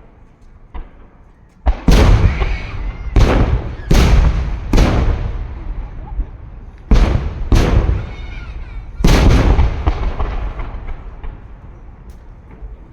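Aerial firework shells bursting: about seven heavy booms in quick groups, each trailing off in a rumbling echo that fades over the last few seconds.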